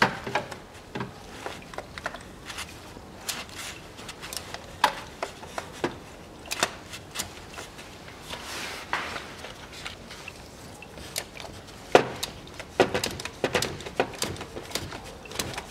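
A socket wrench working on the oil filter housing cap of a Range Rover Evoque 2.2 diesel as it is tightened: scattered sharp clicks and knocks, with a quicker run of clicks about twelve seconds in.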